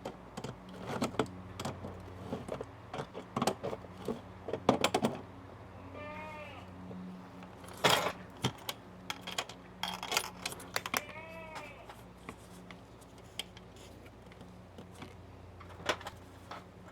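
Irregular metallic clicks, knocks and key rattles as a new cam key lock is fitted and tightened into an RV storage-compartment hatch. A goat bleats twice in the background, about six and eleven seconds in, over a steady low hum.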